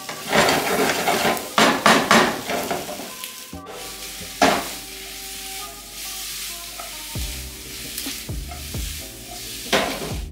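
Wooden spatula stirring and scraping paneer, onions and peppers in a hot nonstick kadai, with frying sizzle. Quick stirring strokes for the first few seconds, then quieter sizzling with a single scrape about four and a half seconds in and another near the end.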